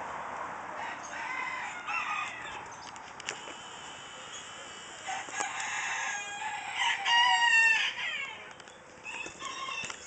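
A rooster crowing, one long crow about seven seconds in that is the loudest sound, with shorter calls a couple of seconds in and again around five seconds in.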